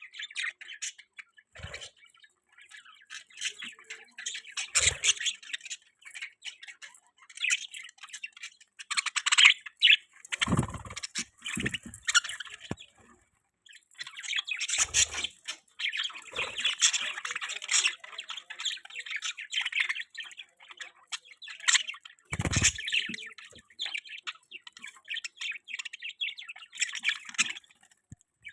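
Budgies (budgerigars) chirping and chattering almost without pause, a busy mix of short high chirps and squawks, with a few dull thumps scattered through.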